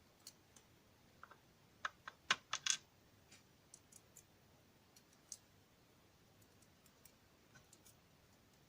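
Small sharp metallic clicks and taps as key pins are worked out of the disassembled DOM ix Saturn lock core, with a quick cluster of louder clicks about two to three seconds in and scattered faint ticks after.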